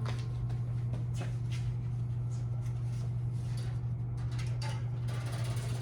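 Steady low hum with scattered light clicks and knocks, like things being handled.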